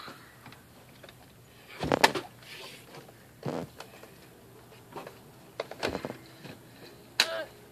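A handful of sharp, separate knocks and clatters, the loudest about two seconds in and another near the end followed by a brief ringing squeak.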